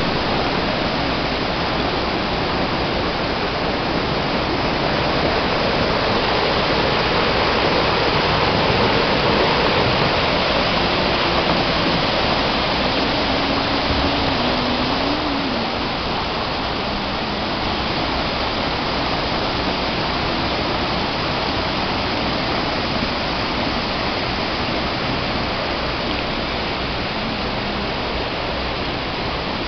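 River in flood after heavy rain: the steady rushing of fast, swollen floodwater and torrents pouring over rocks.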